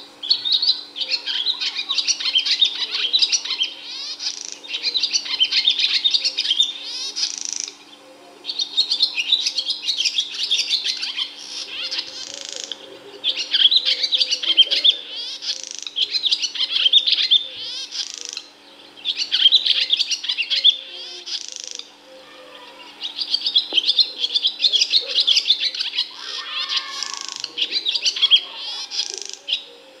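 Barn swallow singing: fast twittering, chattering phrases a few seconds long, split by short pauses, over a faint steady low hum.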